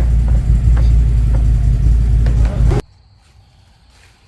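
Electric winch on a CFMoto UForce 1000 UTV running steadily as it reels in a new synthetic winch rope, then stopping abruptly about three seconds in.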